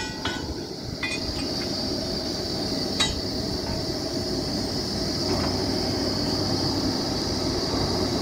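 Truck-mounted borewell drilling rig running steadily with a constant high whine, and sharp metallic clinks of drill pipe being handled about one second in and again, louder, about three seconds in.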